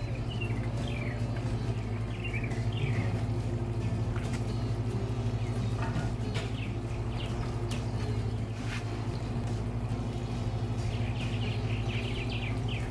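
Small birds chirping over a steady low hum, with a few sharp metallic clicks as charcoal is raked and the cooking grate is set in place on the smoker.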